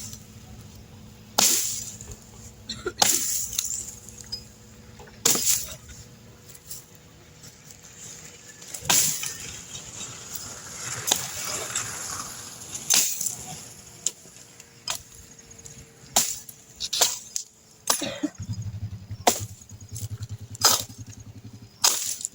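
Machete chopping wood: about a dozen sharp blows, a few seconds apart at first and coming closer together in the second half, with branches rustling in between.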